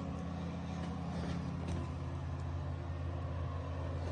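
A steady low mechanical hum holding one even pitch, like an idling engine or running motor, with a few faint light clicks.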